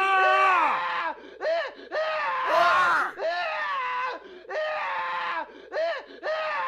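A man screaming: one long held scream that breaks off about a second in, followed by a string of shorter screams with brief pauses between them.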